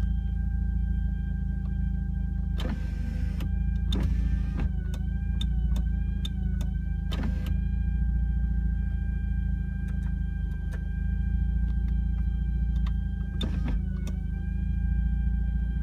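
Mazda RX-8's rotary engine running at idle with a misfire: a continuous low rumble with a steady high whine over it. Four short bursts of noise break in, about 3, 4, 7 and 13 seconds in.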